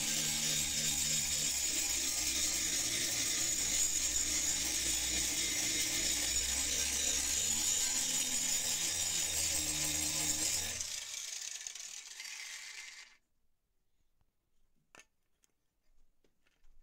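Angle grinder with a flap disc grinding the rusty steel blade of a meat cleaver, a steady hissing grind. About eleven seconds in it comes off the metal and fades out over about two seconds, followed by a few faint clicks.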